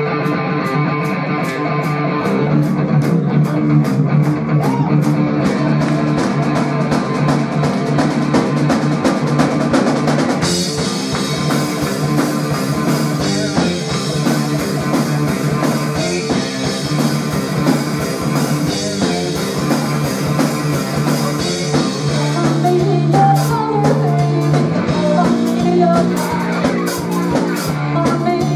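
Live rock band playing: electric guitar and bass over a drum kit keeping a steady beat, with cymbals and the full band coming in about ten seconds in. A woman's singing voice comes in near the end.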